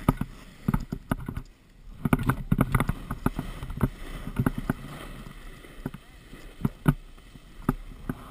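Sliding down a packed snow run: a scraping hiss of snow under the runners, broken by frequent irregular knocks and rattles of the mounted camera.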